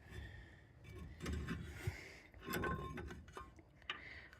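Faint, scattered metallic clicks and taps of a bolt and caliper bracket being handled and fitted during brake work.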